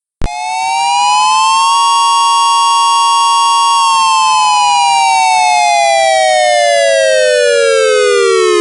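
Tornado siren sounding a single attack blast with oscillation. Two close pitches wind up over about a second and a half, hold steady for about two seconds with a slight pulsing, then slowly wind down to about half their pitch and cut off abruptly.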